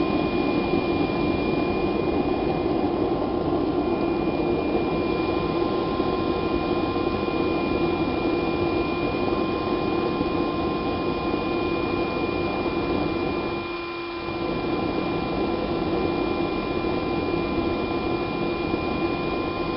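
Propane burner of a homemade gas forge running with a steady rushing noise that dips briefly about fourteen seconds in. The propane supply is running low.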